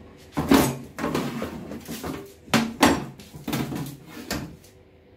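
A run of about six sharp knocks and clunks of kitchen things being handled and set down, the loudest about half a second in and just before the three-second mark.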